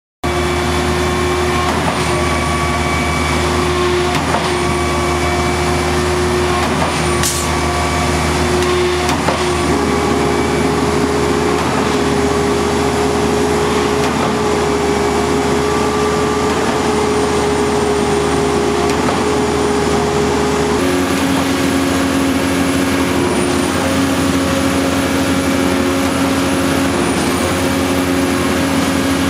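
Truck-mounted concrete boom pump running while pumping: the truck's diesel engine at a steady speed drives the hydraulic system, a continuous mechanical sound with steady whining tones. The pitch of those tones shifts abruptly twice, about a third and about two-thirds of the way through.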